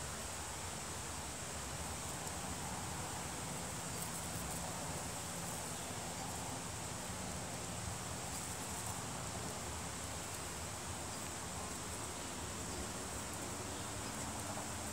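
Bees buzzing as they forage among the flowers, over a steady high-pitched insect chorus.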